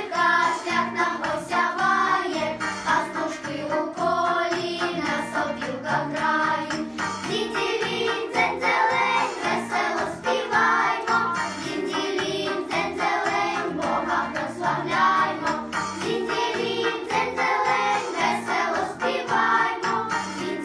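Vocal ensemble singing a Christmas song over a backing track with a steady beat.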